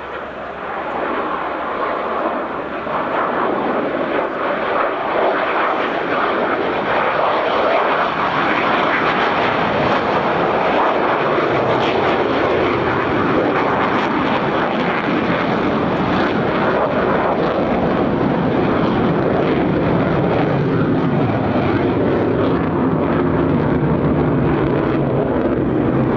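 Jet noise from Mitsubishi F-2 fighters, each powered by a single General Electric F110 turbofan. The noise grows louder over the first several seconds, then holds steady and loud as a continuous rushing roar.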